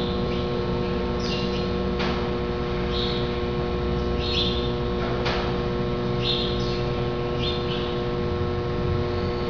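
A bird chirping in short calls every second or two over a steady hum with several fixed tones. Two sharp clicks come about two and five seconds in.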